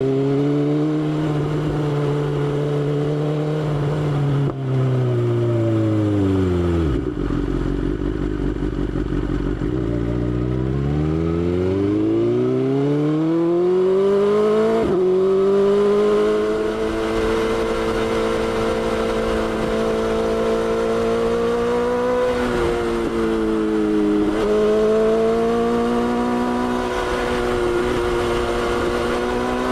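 BMW S1000XR's inline-four engine under way: the engine note falls steeply about five seconds in as the bike slows, sits low for a few seconds, then climbs back up and holds a steady pitch. There is a brief dip and pickup a little past twenty seconds.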